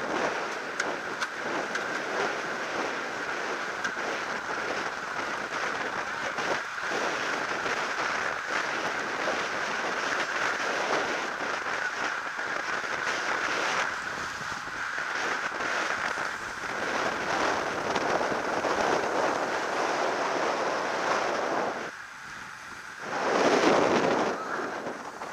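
Wind rushing over an action camera's microphone on a road bike at racing speed, with steady tyre and road noise; near the end a louder gust buffets the microphone.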